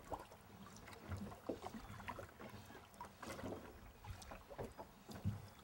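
Faint sounds of a rowed drift boat on a river: water lapping and small irregular splashes and knocks from oars dipping and the hull, over a low rumble. A louder knock comes near the end.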